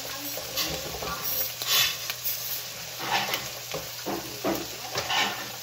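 Minced garlic and ginger sizzling in hot oil in a frying pan, with short sharp crackles that come more often in the second half.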